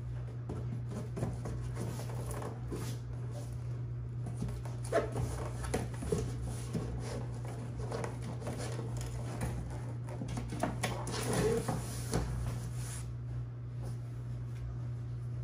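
Corrugated plastic drawer box being handled and slid into a fabric-lined bag compartment: scraping, rubbing and light knocks, busiest in the middle, over a steady low hum.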